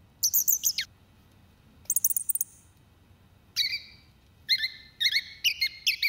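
A human voice singing a song thrush's song, sped up to bird speed so that it sounds like a real thrush. It comes in short phrases of quick, high chirping notes with pauses between, and the last phrase is a short note repeated several times.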